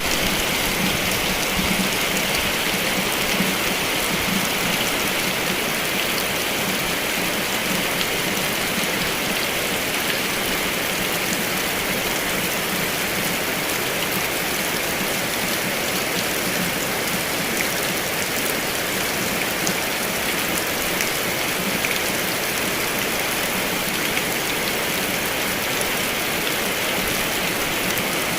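Heavy rain falling steadily, a dense even hiss of drops with scattered sharper patters.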